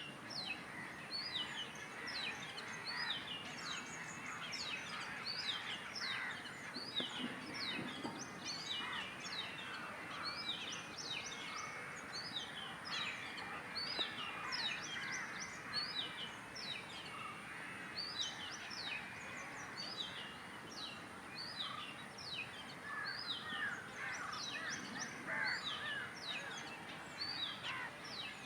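A busy chorus of birds calling: many short, high notes that slide downward in quick succession, overlapping throughout, with lower chattering calls underneath.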